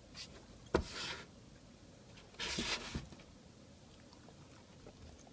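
A puppy moving about, with a sharp knock about three-quarters of a second in, followed by brief rustling noise. A second, longer rustle about halfway through ends with a thump.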